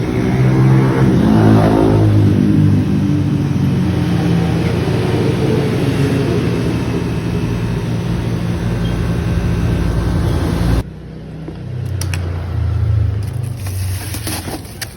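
Motorcycle engine revving up, then running steadily, and cutting off abruptly about eleven seconds in, leaving a quieter low rumble.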